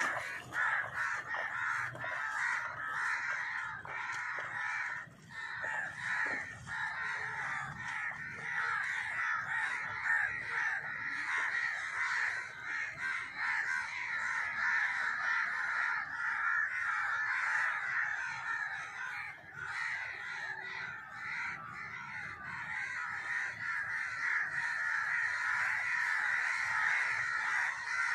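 A flock of birds calling all at once, a dense chorus of overlapping calls with no gaps.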